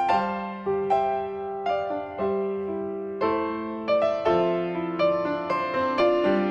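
Background piano music: a gentle melody of struck notes, each ringing and fading, about one or two a second.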